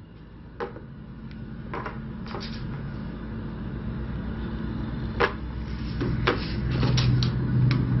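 Scattered sharp clicks and knocks from handling inside an empty enclosed cargo trailer, a few close together near the end. Under them is a low steady hum that grows louder.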